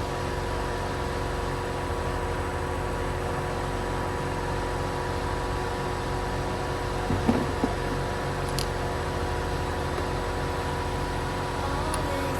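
Philips EP2231 automatic coffee machine running with a steady mechanical hum made of several constant tones, with a few light knocks about seven seconds in.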